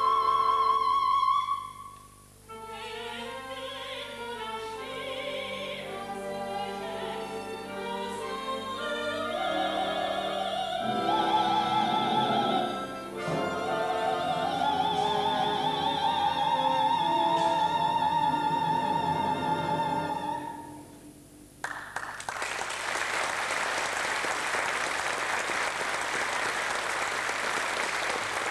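A soprano sings with the orchestra, ending the number on a long held note with a wide vibrato. About three-quarters of the way through, the music stops and the audience applauds.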